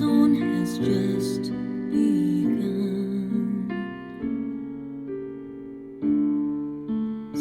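Piano-led soft ballad music from a car audio system: a quiet instrumental passage of sustained piano chords, a new chord struck about every two seconds.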